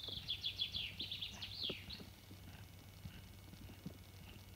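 A songbird sings one quick trill of high notes that fall in pitch, lasting about two seconds, over soft scattered footsteps on a dirt track.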